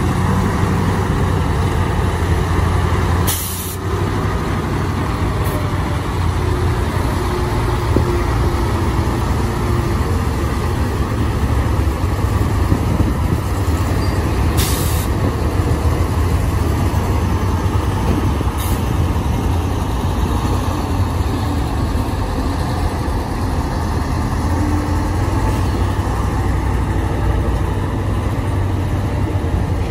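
Heavy diesel dump truck engines running steadily with a deep hum, with a few short air-brake hisses.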